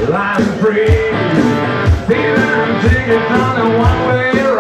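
Live rock band playing: a male vocalist singing over electric guitar and a steady drum beat.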